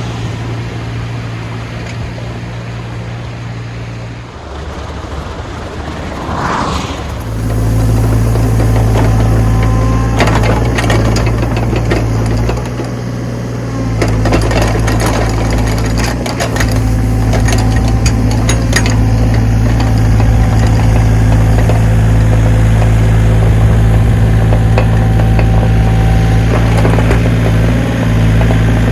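Backhoe engine running steadily, then picking up to a louder working speed about seven seconds in and holding there, with a scatter of knocks and clatter from the machine at work through the middle.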